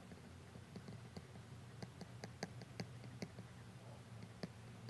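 Apple Pencil tip tapping and stroking on an iPad screen while sketching: soft, irregular clicks, a few a second, over a faint steady low hum.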